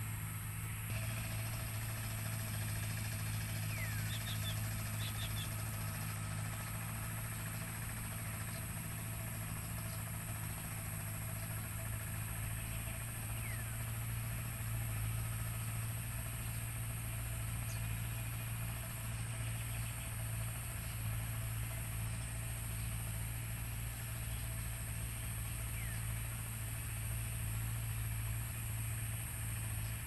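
Engine of a walk-behind hand tractor running steadily as it works a flooded rice paddy: an even, unbroken low hum.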